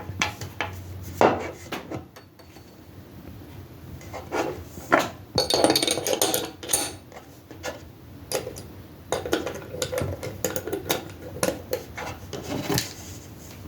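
Hands working the parts of a Taurus G2C pistol: scattered sharp clicks and knocks of metal and polymer parts, with stretches of rubbing and sliding in between.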